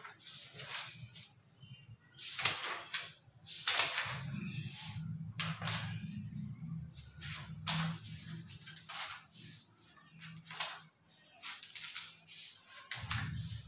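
Classroom background during a pause in teaching: irregular short rustles and scratches, with a faint low murmur of voices underneath.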